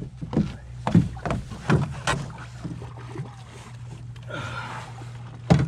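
Outboard motor idling with a steady low hum, under a string of sharp knocks and thumps in the boat as a hooked trout is fought on a spinning rod. A brief rush of noise comes about four and a half seconds in.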